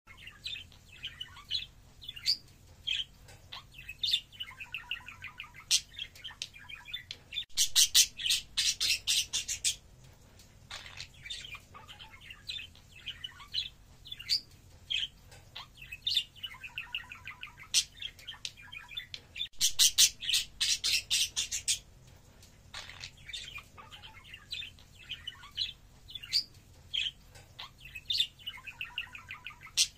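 Budgerigars chirping and warbling in short twittering calls, with two bursts of rapid, loud chattering, one about a quarter of the way in and another about two-thirds of the way in.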